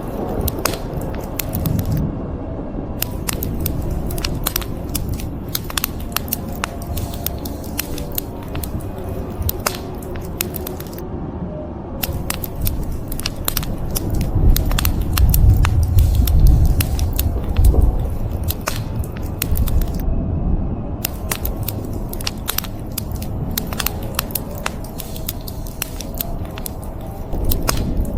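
Wood fire crackling and popping in a fireplace, with rapid sharp snaps over a steady hiss of rain. Low thunder rumbles through the middle, heaviest around halfway.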